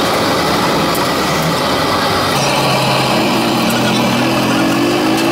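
Steady engine and traffic noise. About halfway through, a low steady engine hum sets in, and an engine's pitch slowly rises near the end.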